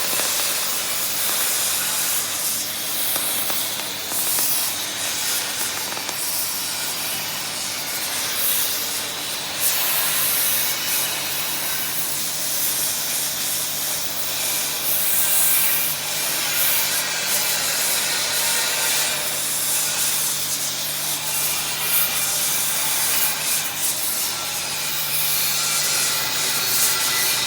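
Shielded metal arc (stick) welding on cast iron with a 3.2 mm cast-iron electrode at about 90 A: the arc gives a steady crackling hiss, with a faint low hum underneath.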